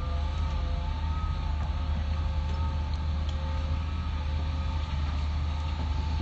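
Hitachi excavator's diesel engine running steadily with a deep, low rumble, with several faint whining tones above it that waver slightly in pitch.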